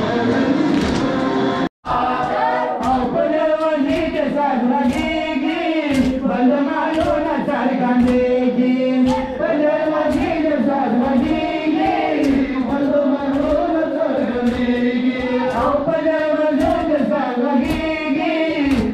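A group of male voices chanting a Shia noha (Muharram lament) in chorus, over a regular beat of hands striking chests in matam.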